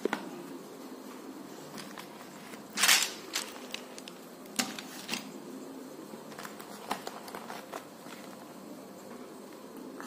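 Handling noise: a brown paper bag rustling, loudest in one short burst about three seconds in, with scattered light clicks and taps as art supplies are picked up and set down, over a steady low hum.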